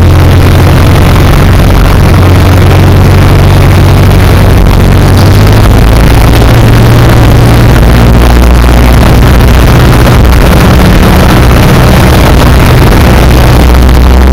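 Piper Super Cub's engine and propeller droning loudly from inside the cockpit in flight, the engine note shifting about five seconds in and again near ten seconds as power is adjusted on approach.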